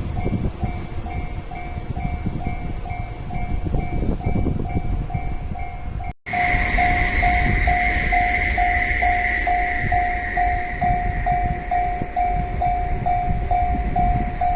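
A Japanese level-crossing warning bell rings steadily about twice a second while a freight train hauled by an EF210 electric locomotive rumbles past on the rails. About six seconds in, the sound drops out briefly at an edit. After that, a high hiss rides over the train noise for a few seconds and then fades.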